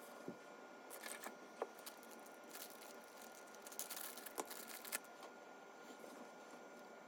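Unboxing handling noise: a scattered run of light clicks and short rustles, busiest in the middle few seconds.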